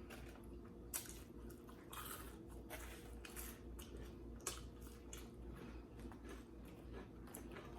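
A person chewing food close to the microphone: faint, irregular wet clicks and smacks, over a faint steady hum.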